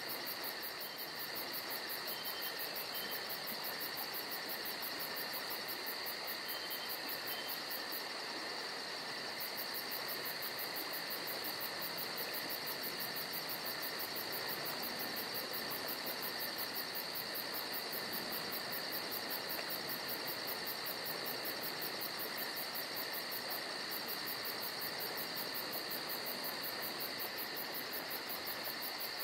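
Steady chorus of forest insects: a constant shrill tone with a higher, fast-pulsing trill over it. The high trill drops out briefly about eight seconds in.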